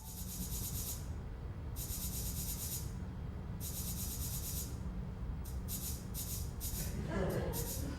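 Hissy, scratchy rubbing strokes over a low steady rumble: three strokes of about a second each, then quicker, shorter ones near the end.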